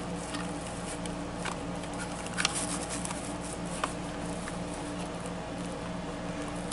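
Hands handling a fabric costume on a plastic animatronic frame: a few light clicks and rustles over a steady electrical hum.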